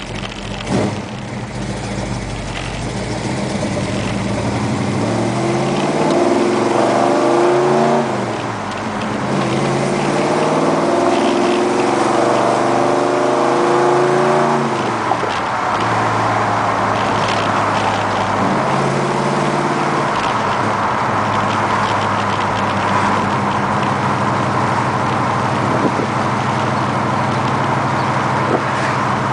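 A 1971 Plymouth Satellite's 360 V8, heard from inside the cabin, pulling away from a stop: the revs climb, drop at an upshift about eight seconds in, climb again and drop at a second shift around fifteen seconds, then settle into a steady cruise.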